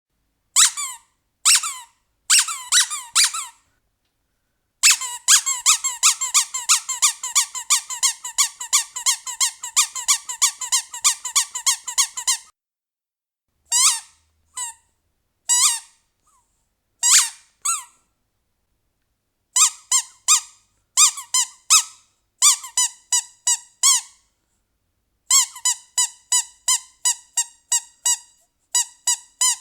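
Rubber squeaky toy being squeezed repeatedly, giving short high squeaks in groups with silent gaps between. From about five seconds in to about twelve it is squeezed fast and without pause, several squeaks a second.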